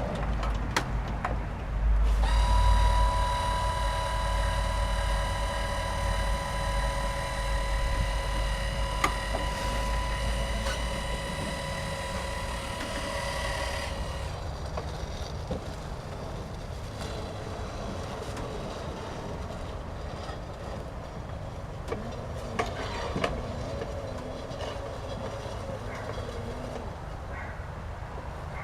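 Electric garden tractor's motor running with a steady whine over a low rumble. About fourteen seconds in, the whine stops and a quieter rumbling noise with a few clicks carries on.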